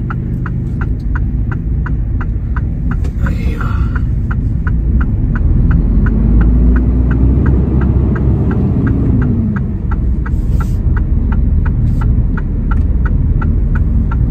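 Heavy truck's diesel engine running, heard inside the cab as the truck moves off, its note rising and falling around the middle. Over it, the indicator relay ticks steadily about two to three times a second.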